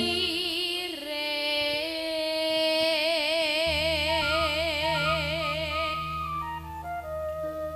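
A woman singing campursari: long held notes with a wide, even vibrato over the band's gamelan instruments. A low sustained bass tone joins about halfway through.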